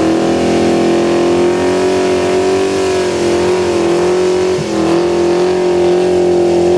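VP Holden Commodore's 355 stroker V8 held at high revs during a burnout, the rear tyres spinning. The engine note stays steady, dipping briefly a little past halfway before coming straight back up.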